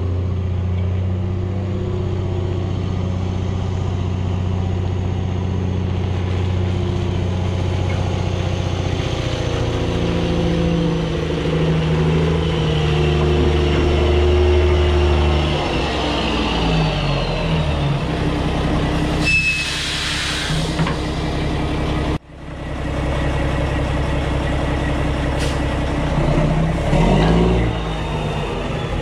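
Mack semi truck's diesel engine running, its pitch shifting and dropping partway through, with a short burst of air hiss about twenty seconds in.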